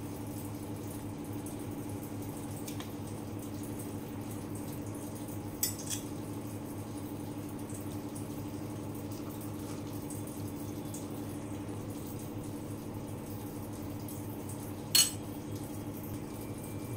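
Steady low hum, with two light clicks about six seconds in and a sharper click near the end, from a measuring spoon knocking against a glass mixing bowl.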